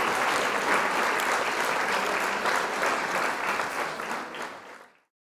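Applause from a crowd, a dense patter of many hands clapping, fading out and cutting to silence near the end.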